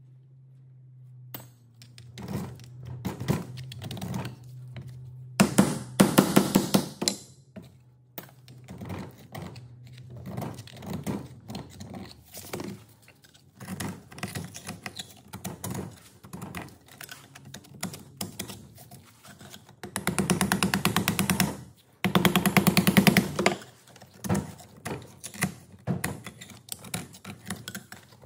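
Metal scraper working over a Zetor 3011 tractor's cast-iron diesel cylinder head, scraping off old dirt and deposits with many short strokes and knocks. There are louder bouts of fast, even scraping about six seconds in and again around twenty to twenty-three seconds.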